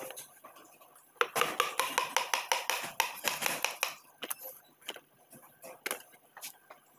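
Quick run of sharp taps, about seven a second for nearly three seconds, as a piston is driven down through a band-type ring compressor into a cylinder bore of a Perkins diesel block. A few single knocks follow.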